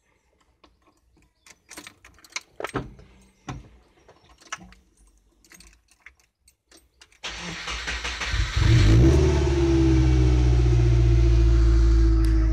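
A few light clicks and taps, then the Subaru engine of a VW T25 van conversion cranks on the starter and catches about two and a half seconds from the end of the cranking. It then runs steadily at idle, heard from inside the cab.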